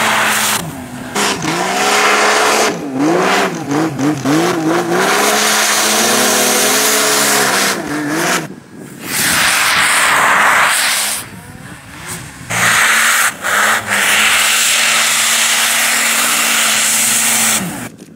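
A 2017 Arctic Cat King Cat snowmobile's turbocharged four-stroke three-cylinder engine revs hard under load in deep powder. Its pitch swoops up and down again and again with the throttle, over a loud rushing hiss. The sound drops away suddenly several times.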